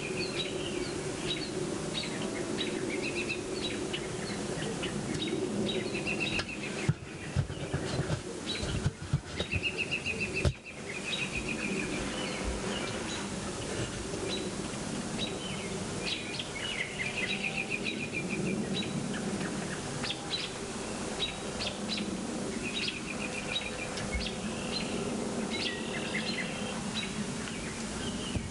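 Birds chirping and giving short trilled calls again and again over a steady outdoor noise bed. A few sharp loud bumps come about seven to ten seconds in.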